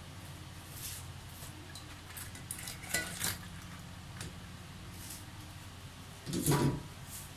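Mud crabs tipped from a plastic colander into an aluminium pot of broth: hard shells clicking and clattering against the pot, with a heavier clunk about six and a half seconds in.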